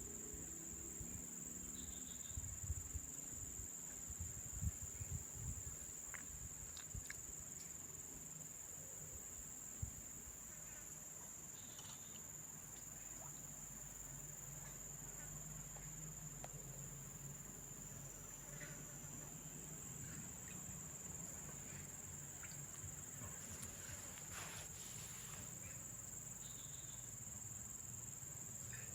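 Insects making a steady high-pitched buzz, with a few low dull knocks in the first few seconds.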